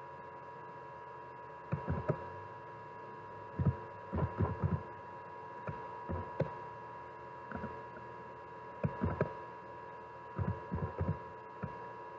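Computer keyboard keystrokes in short irregular bursts of a few soft taps each, over a steady electrical hum.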